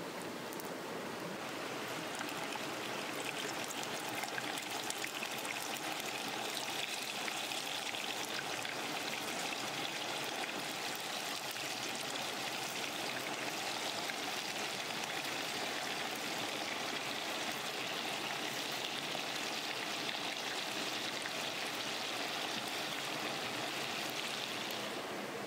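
Fish pieces deep-frying in bubbling oil in a clay pot: a steady sizzle with fine crackling, which grows stronger about a second and a half in.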